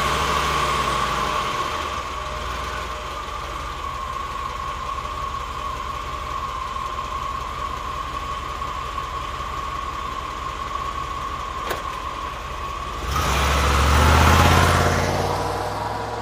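1990 Cadillac engine idling just after starting, with an even low pulsing and a steady high whine over it. A single click comes about twelve seconds in, then the engine is revved once, rising and falling back toward idle near the end.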